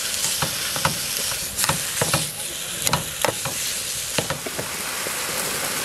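Pork neck steaks sizzling in a nonstick frying pan, a steady hiss. Metal tongs click against the pan again and again through roughly the first four seconds as the meat is turned and moved.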